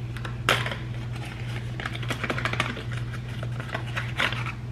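Clicks, taps and crackling of a hair-care product's packaging being handled by hand, sharpest about half a second in and again near the end, over a steady low hum.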